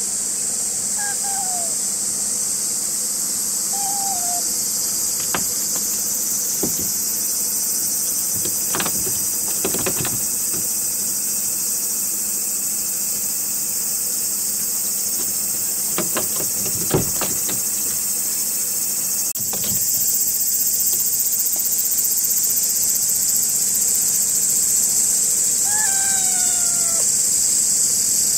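Steady, high-pitched drone of a dense insect chorus throughout, with a few short falling mews from a calico kitten and a handful of sharp knocks on its plastic crate.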